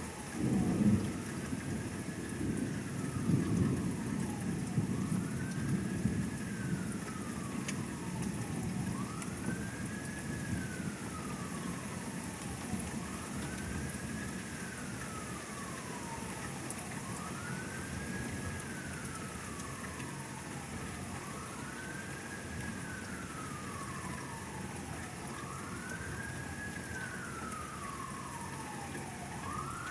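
Steady rain with a roll of thunder that booms about a second in and rumbles away over several seconds. Throughout, a siren wails, each cycle rising quickly and then sliding slowly down, repeating about every four seconds.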